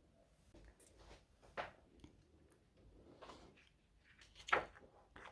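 A photo book being handled and opened: soft rustles and taps of paper and card, a few short sharp ones, the loudest about four and a half seconds in.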